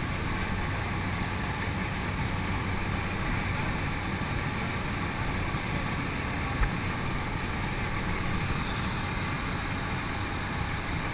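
Steady drone of a small jump plane's engine and propeller with wind rush, heard from inside the cabin.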